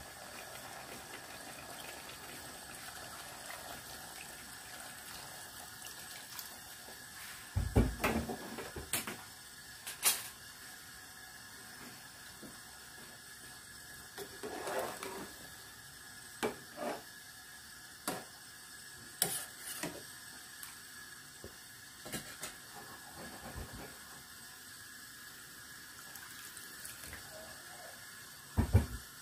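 Water poured into an aluminium pot of fish curry, then a spoon stirring it, with scattered clinks and knocks of the spoon against the pot over a steady low hiss.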